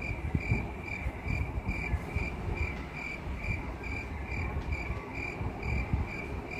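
Cricket chirping steadily, a single high chirp repeated a little over twice a second over a low background rumble: the comedic 'crickets' cue for an awkward silence.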